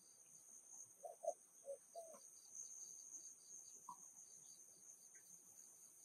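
Faint outdoor insect chorus of crickets and other insects: a steady high-pitched trill with a regular chirp about three times a second. A bird gives four short low calls about a second in.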